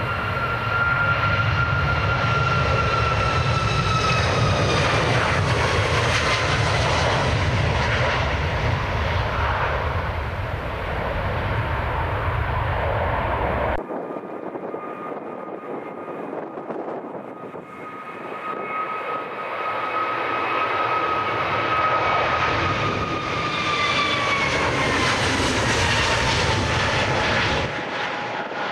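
Jet airliners on their takeoff runs at full thrust, one after the other. First a Boeing 737's engines roar past with a high whine that slides down in pitch as it goes by. After an abrupt cut about halfway, an Airbus A320-family jet's engines build up as it accelerates and lifts off, its whine also falling in pitch as it passes.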